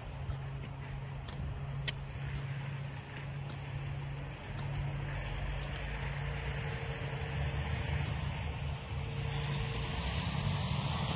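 A steady low engine-like hum that swells somewhat in the second half, with faint, irregular sharp ticks over it.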